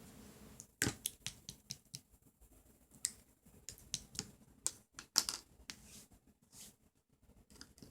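A series of irregular sharp clicks and taps, about twenty in all, unevenly spaced, with the loudest ones about a second in and about five seconds in.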